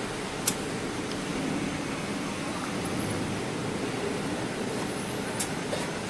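Steady machinery noise from a braiding-machine workshop, with a sharp click about half a second in and another near the end.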